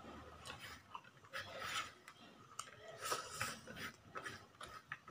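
Fingers scraping and pushing the last grains of rice across a ceramic plate, a run of irregular short rasping scrapes.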